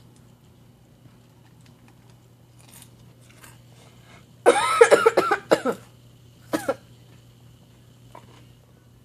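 A person coughing: a quick run of several loud coughs about halfway through, then one more single cough a second later.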